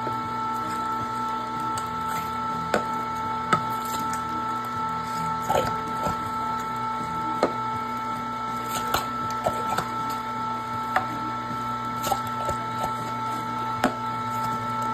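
Electric meat grinder motor running with a steady whine while ground venison is pushed out of its stuffing tube into a freezer bag, with scattered light clicks.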